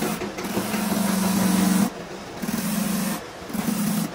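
A motor-driven machine running in short spells: a steady hum that stops and starts again twice, over a constant rasping hiss.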